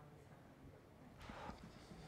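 Near silence: room tone, with one faint brief hiss a little over a second in.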